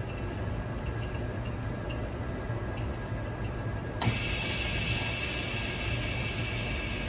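Vacuum OCA laminating machine running with a steady low hum; about four seconds in, a loud hiss of rushing air starts suddenly and keeps going as the machine's vacuum cycle begins.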